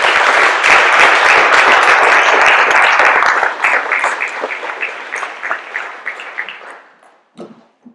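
Audience applauding: dense clapping that thins into scattered separate claps after about three and a half seconds and dies out about seven seconds in.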